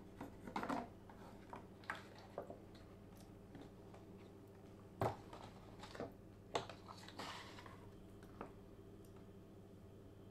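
Red plastic print tongs clicking and knocking against plastic developing trays as a sheet of photographic paper is dipped in and lifted out of developer and fixer, with small splashes and drips of liquid. A dozen or so sharp clicks come at irregular intervals over a faint steady hum.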